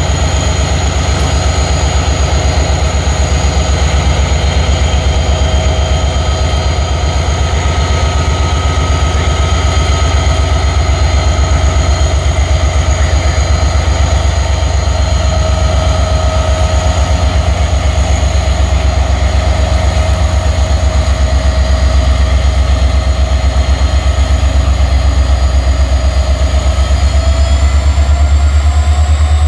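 Norfolk Southern diesel-electric freight locomotive's engine running close by: a loud, steady low rumble with a fine, even pulse, under several steady high whines that rise slightly near the end.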